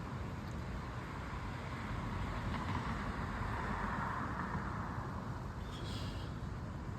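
A car passing on a nearby road, its noise swelling and fading over a few seconds, above a steady low rumble of traffic. A brief high chirp comes near the end.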